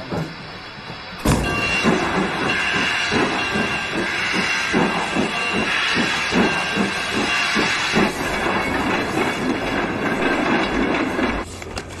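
Steam locomotive letting off steam in a loud, steady hiss, with a regular chuffing beat underneath. It starts suddenly about a second in and falls away just before the end.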